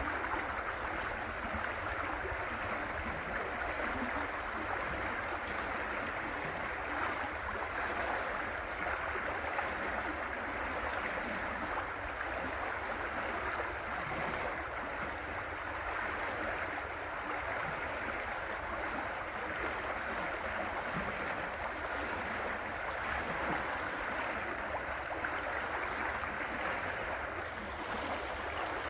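River water rushing and gurgling over rocks: a steady, even rush with no breaks.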